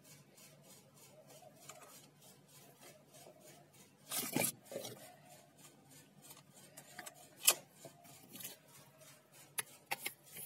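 Handling noises: a short burst of rubbing about four seconds in, then a few sharp clicks, the loudest about seven and a half seconds in and several close together near the end, over a faint background.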